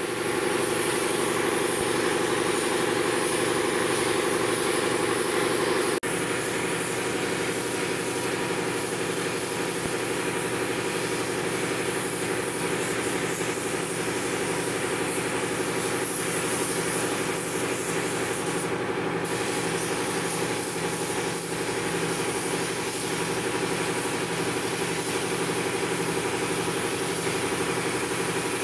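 Steady machine hum of an air compressor running, under the hiss of a compressed-air paint spray gun laying on a colour coat. The hum gets slightly quieter about six seconds in.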